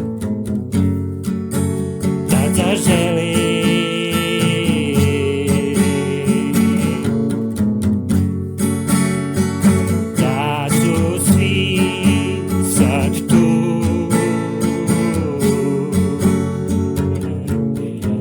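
Music with strummed acoustic guitar and a wavering lead melody line.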